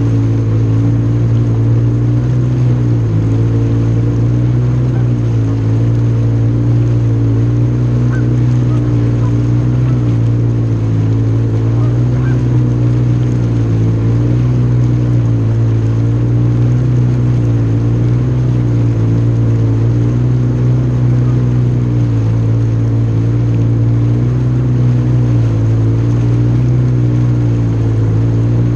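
Jet ski engine running steadily and loud, its pitch rising and falling slightly as the throttle varies.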